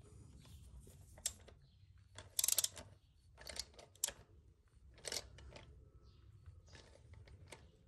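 Sharp, irregular metallic clicks and short rattles from a cap-type oil-filter wrench on an extension bar, working the oil filter of a 2005 Mitsubishi Colt 1.5D. The loudest is a quick rattling cluster about two and a half seconds in.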